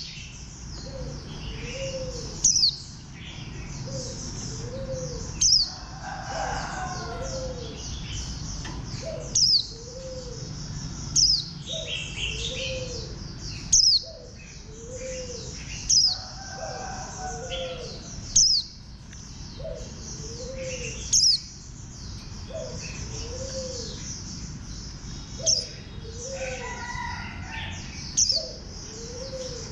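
White-eye (vành khuyên) singing a rapid, high twittering song, broken every two to three seconds by a loud, sharp note that sweeps downward. Underneath, a low note repeats about once a second.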